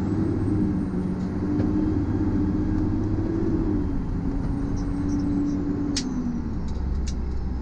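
Fire apparatus engine running under way, heard from inside the cab with road noise. The engine note holds steady and then drops near the end as it eases off, and two sharp clicks come near the end.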